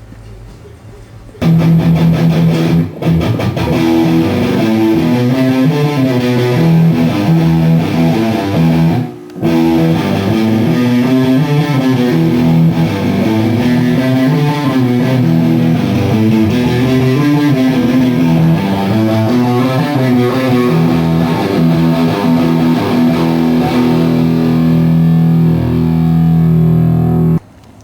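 Guitar music that starts about a second and a half in, drops out briefly about nine seconds in, then continues and cuts off just before the end.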